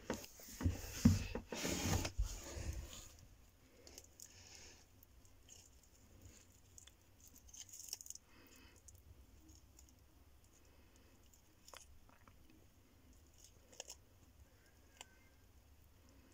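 A loud rustling and scraping for the first three seconds, then a Horsefield tortoise biting and tearing at a hand-held dandelion leaf: faint, scattered crunches and clicks.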